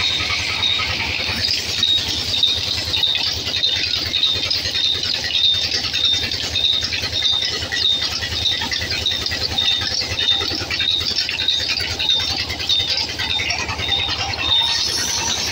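Large belt-driven band saw running and sawing logs: a steady high hiss with a short high squeak repeating about twice a second, over a low hum from the flat belt drive.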